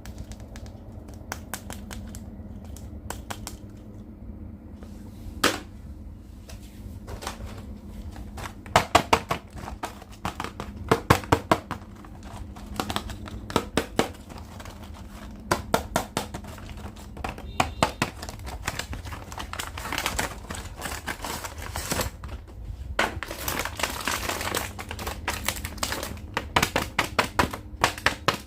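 Plastic action-figure packaging and toys being handled during unboxing: bursts of sharp clicks and taps, with crinkling and rustling of plastic, longest near the end.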